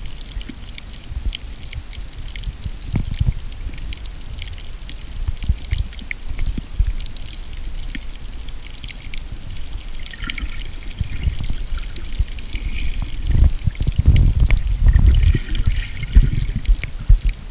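Underwater ambience picked up by a camera held under the sea over a rocky seabed: a low, rough water surge with scattered crackling clicks, growing louder in the last few seconds. A faint high whine comes in about ten seconds in and again near the end.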